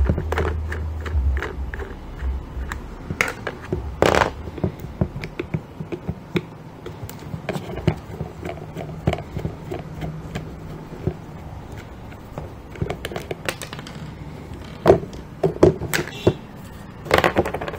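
Toy plastic screwdriver turning out the wheel screws of a plastic toy loader: scattered clicks and scrapes of plastic on plastic, with plastic wheels and parts knocking on a wooden table top, the loudest knocks about four seconds in and near the end.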